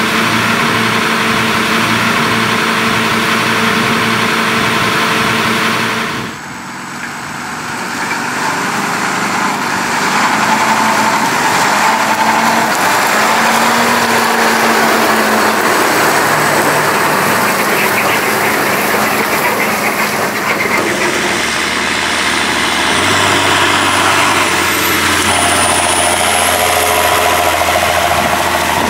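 Heavy diesel farm machinery running at work in a corn harvest, a steady engine drone over dense mechanical noise. The sound changes abruptly about six seconds in and again later, as from one machine to another.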